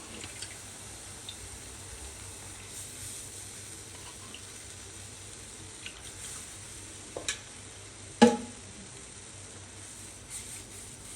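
Butter-flour roux with milk sizzling faintly in a pan as it is stirred. A spoon knocks against the pan twice, the louder knock about eight seconds in.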